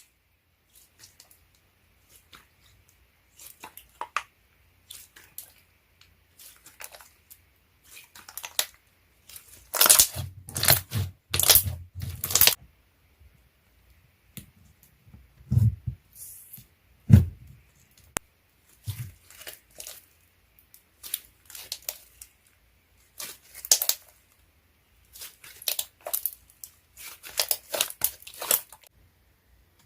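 Slime being handled: irregular clusters of short, sticky pops and crackles separated by brief pauses, the loudest run about ten to twelve seconds in.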